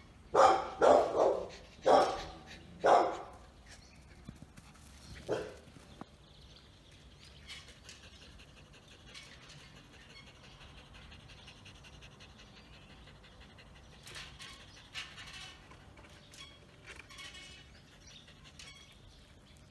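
German Spitz barking: four barks in quick succession, then a single quieter bark about five seconds in.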